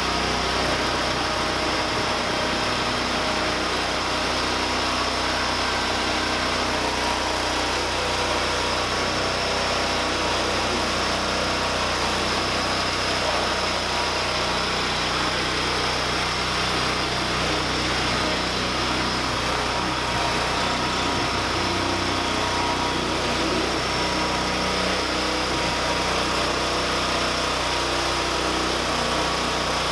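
MTD 990 lawn tractor engine running steadily at an even speed.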